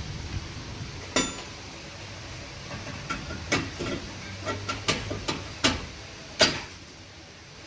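Metal tools and brake parts clanking and knocking: one ringing metallic clank about a second in, then a run of sharp knocks, the loudest near the end.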